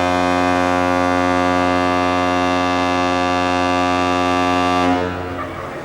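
The sail training ship Sedov's horn sounding one long, steady, low blast, which stops about five seconds in. It is the signal to set the next sails.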